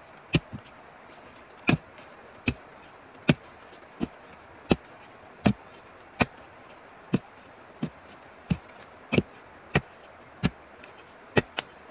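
A long digging tool chopping repeatedly into soil and tree roots, about fifteen sharp strikes at a steady pace of roughly one every 0.7 seconds.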